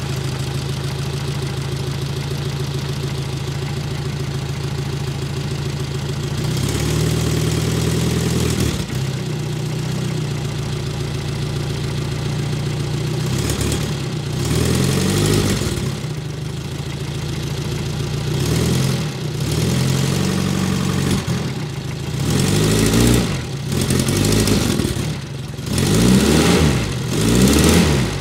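Renault Dauphine Gordini's rear-mounted four-cylinder engine idling steadily, just started after months of standing. The revs rise for a couple of seconds about a quarter of the way in, then it is blipped repeatedly from about halfway, the blips stronger near the end.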